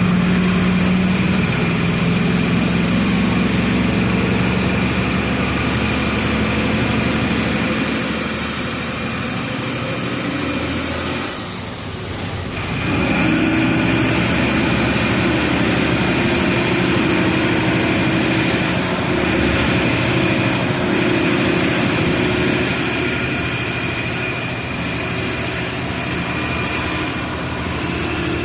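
Volksbus 17-230 EOD bus's diesel engine running steadily under load, with a high whine over it. About twelve seconds in it briefly drops away, then picks up again.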